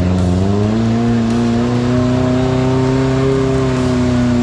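Off-road 4x4's engine revved up and held at high revs as it pushes through deep mud, steady in pitch, with the revs starting to fall right at the end.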